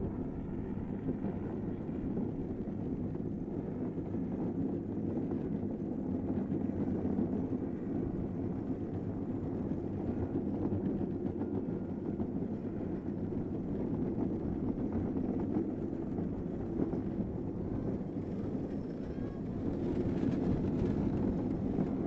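Steady rolling rumble of an unpowered downhill kart's wheels on the paved track, heard from a camera mounted on the kart, with wind on the microphone. It gets a little louder near the end.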